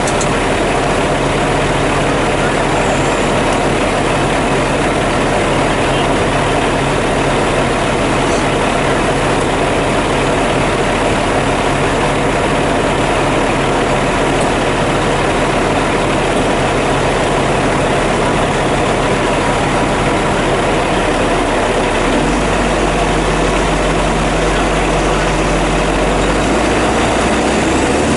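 Diesel engines of a John Deere 772CH motor grader and a loaded Peterbilt log truck running together, a steady heavy engine drone. The engine note changes about 22 seconds in.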